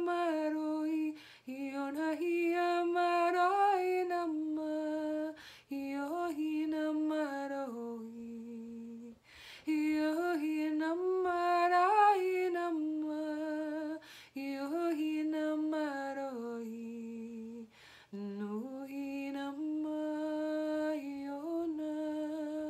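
A woman singing wordless light-language toning: long held vowel notes that waver up and down in slow phrases of a few seconds, with short breaths between them. Two phrases settle onto a lower held note at their end.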